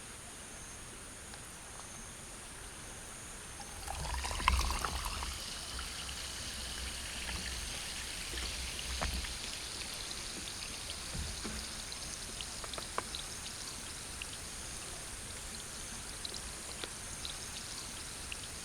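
Mountain stream water flowing and trickling, getting louder about four seconds in. A few light clicks and one sharper knock sit on top of it.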